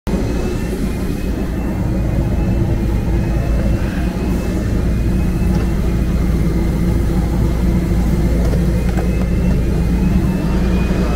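Aircraft engines running with a steady, loud drone and a faint high whine above it.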